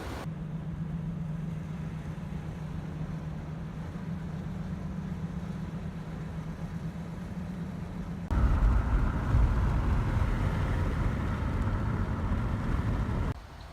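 A motor vehicle's engine running steadily, heard as a low even hum. About eight seconds in it cuts abruptly to a louder, deeper rumble of a running vehicle.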